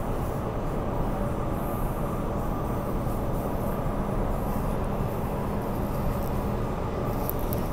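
Running noise of a Bombardier–Downer electric multiple unit heard from inside the carriage: a steady rumble of wheels on rail with a constant hum.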